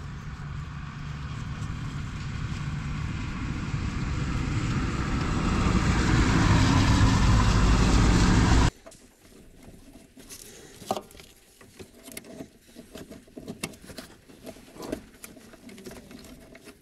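Steady machine noise with a low hum, growing louder over about eight seconds and then cutting off abruptly, followed by scattered light knocks and clinks.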